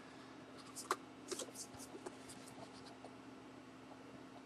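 Faint rustles and a few light taps of a hardcover book being handled and held open, clustered about a second in, over a steady low hum.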